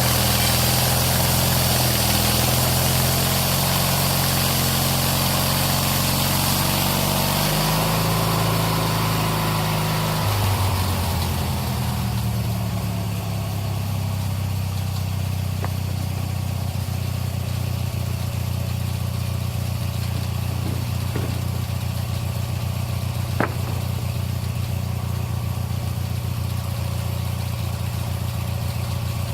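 Snapper lawn mower engine driving a homemade sawmill. For the first ten seconds it runs fast with a loud hiss over it, then slows and settles into a steady idle. A single sharp click comes near the end.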